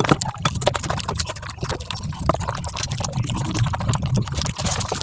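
Mukbang eating sounds sped up about five times: rapid chewing and mouth smacking heard as a dense, continuous run of clicks.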